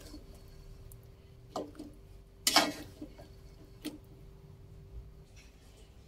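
Metal spatula scraping and knocking against an aluminium wok while stirring chicken feet in thick chili sauce, a few separate strokes with the loudest about two and a half seconds in, over a faint steady hum.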